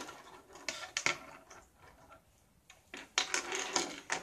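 Plastic toy train track pieces clicking and clattering on a wooden table as they are handled and fitted together: scattered sharp clicks and knocks, with a cluster in the last second or so.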